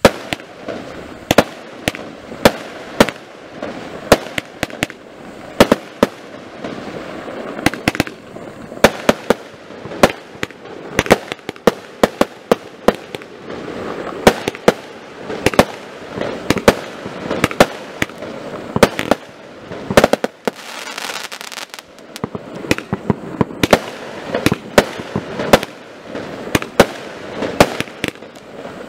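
Firestar Palm Project 60-shot fireworks cake firing shot after shot straight up, with sharp reports of launches and aerial bursts about two a second over a continuous rush of noise.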